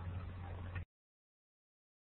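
Faint hiss with a steady low hum from an open microphone line, cutting off abruptly a little under a second in to dead silence.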